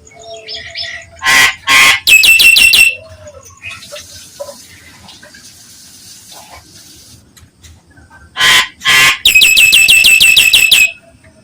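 Nias hill myna calling loudly in two outbursts. Each is a pair of harsh squawks running into a fast string of repeated piercing notes, about ten a second. The first string is short and the second lasts about two seconds, near the end.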